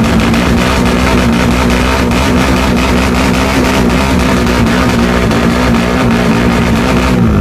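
Rock music with electric guitar, with a tuned Suzuki Satria FU drag-bike engine running underneath. A steady low drone holds level and then breaks off abruptly near the end.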